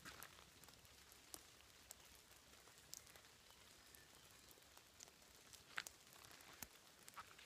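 Near silence: a faint hiss with sparse, irregular light ticks of raindrops falling.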